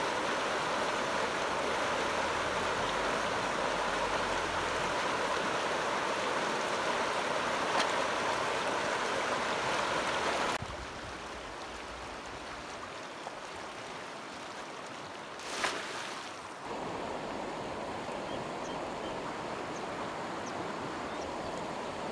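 Shallow mountain stream flowing fast over stones, a steady rush of water. It drops in level abruptly about ten seconds in, and a single brief knock comes a few seconds later.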